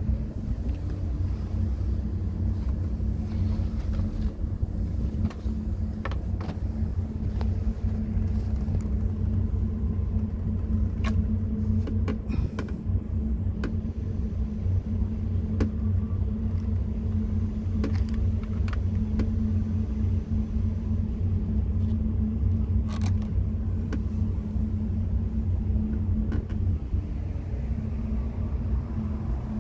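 An engine running steadily: a constant low rumble with a steady hum, and a few light clicks and knocks.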